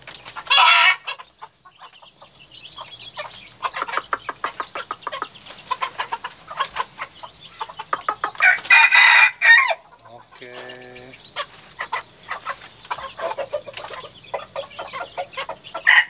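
Chickens clucking again and again, with a rooster's short crow about halfway through. Loud calls also come just after the start and at the very end.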